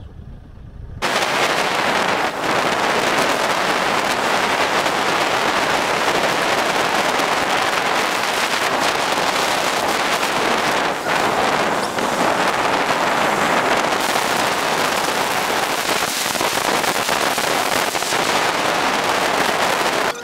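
Steady, loud crackling rush of wind and road noise on a camera riding on a moving car, cutting in abruptly about a second in.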